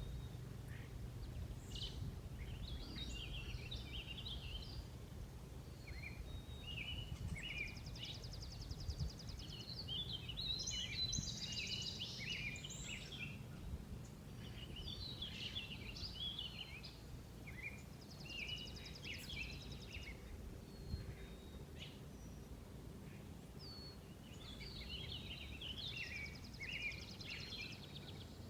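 Birds singing outdoors, many short chirping phrases overlapping, with a buzzy trill that comes back every several seconds, over a faint low hum.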